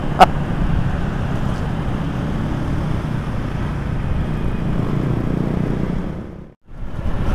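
Steady riding noise from a Yamaha Jupiter MX King's single-cylinder engine, with wind and traffic around it, and a sharp click right at the start. The sound drops out briefly near the end, then comes back.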